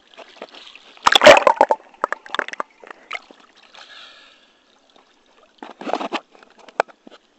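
Pool water splashing and sloshing against a waterproof action camera as it dips in and out at the surface, in irregular bursts: the loudest about a second in, more over the next two seconds, and another cluster near six seconds.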